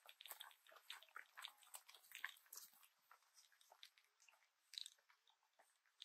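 Faint, irregular crunching and crackling of footsteps on a rainforest walking track.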